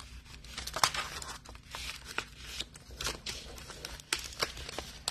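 Heavyweight kraft paper rustling and crinkling as it is handled and folded around a foil-wrapped candy bar, with irregular small clicks and taps, the sharpest about a second in.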